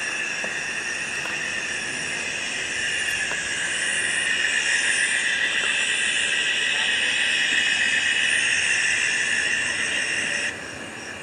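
Steady, dense chorus of night insects over the swamp, a continuous shrill hiss that drops back sharply near the end.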